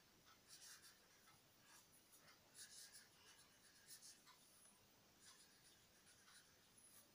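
Faint scratching of a pen on paper as words are written by hand: short, irregular strokes.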